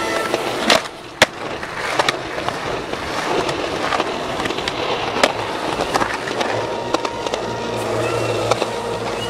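Skateboard wheels rolling over rough concrete, with several sharp clacks of the board against the ground.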